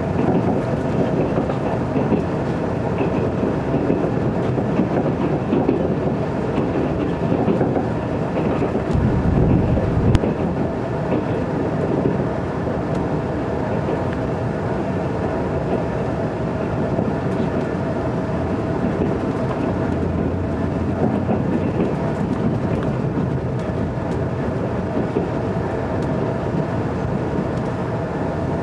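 Cabin running noise of a JR 381-series limited express electric train: a steady rumble of the wheels on the rails. The low rumble swells for a moment around nine to ten seconds in.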